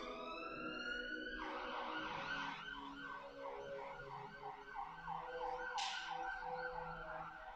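Emergency vehicle siren: a slow rising wail that switches about a second and a half in to a fast yelp, about three sweeps a second.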